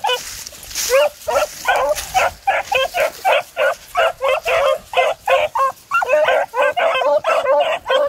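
Beagles baying on a rabbit's scent trail: short cries, about two or three a second, overlapping one another without a break.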